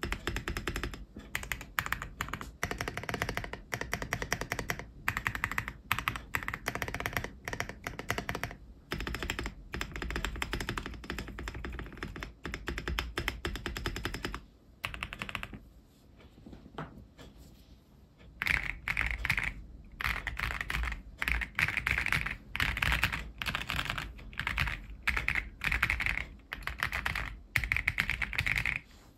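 Typing on a CIY Gas 67 mechanical keyboard with lubed Ganss Soul Silver switches, milk-white XDA-profile keycaps and a PE foam mod under the switches. The keystrokes come thick and fast at first, thin to a few scattered presses about halfway through, then return in quick, louder bursts.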